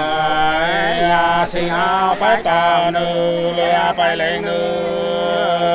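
Unaccompanied Nùng hát sli folk singing: a voice holding long, slowly gliding notes in a chanting style, with short breaks between phrases.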